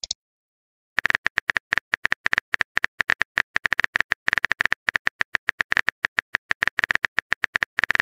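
Rapid run of smartphone keyboard tap clicks, the typing sound effect of a text message being entered, starting about a second in at roughly nine clicks a second.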